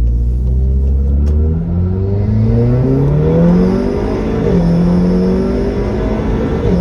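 Vortex XL's engine pulling hard, its pitch climbing in a few steps over the first four seconds, then running steadily at a higher pitch.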